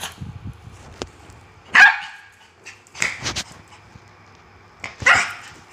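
Small Pomeranian dog giving a few short barks while play-fighting a sandal; the loudest comes about two seconds in, then a quick cluster, then one more near the end.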